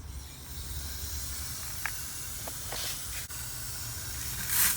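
Water running steadily into a watering can, with a brief louder rush near the end.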